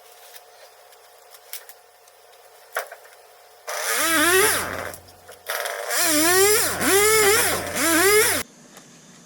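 Chainsaw revving hard several times, its pitch climbing and falling with each rev, with a short break about five seconds in. It starts a few seconds in and cuts off sharply near the end, after a few faint clicks.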